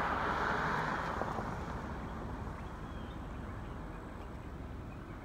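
Sentry 20V2T outdoor warning siren's tone dying away over the first two seconds as the siren finishes its test, leaving a steady low outdoor background.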